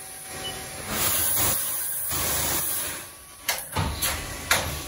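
Haas UMC-1000SS five-axis machining center at work inside its enclosure: a loud hiss of spray starts about a second in as the spindle head moves down with coolant running, then several sharp clicks and knocks come in the last second and a half.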